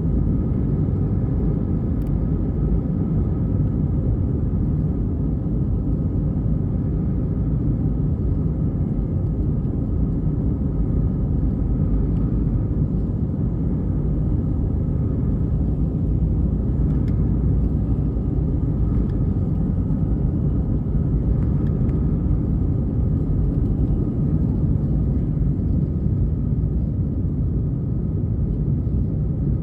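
Steady low rumble of a vehicle running, even and unchanging.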